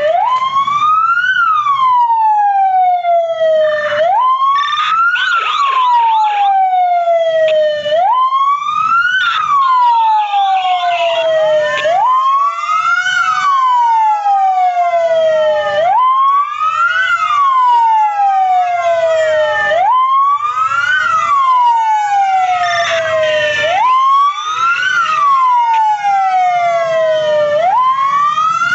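Several fire engine sirens sounding together. The loudest repeats a wail about every four seconds: a sudden step up in pitch, a short rise, then a long falling slide. Other sirens overlap it out of step.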